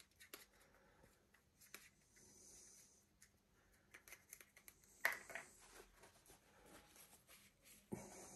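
Faint scratching and light clicks of a paintbrush being worked in a small pot of airbrush cleaner, with a sharper tap about five seconds in and another near the end.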